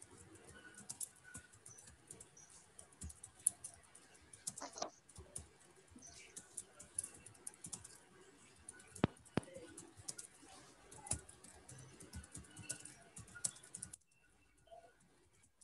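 Typing on a computer keyboard: faint, irregular key clicks that stop about a second before the end.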